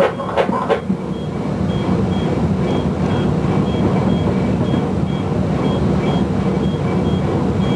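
Steady mechanical rumble, like a running engine, with a short high electronic beep repeating about twice a second. No firework bangs stand out.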